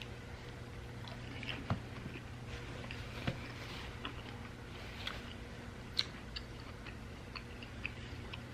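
Close-miked chewing of pizza: soft wet mouth smacks and small clicks scattered irregularly over a low steady hum.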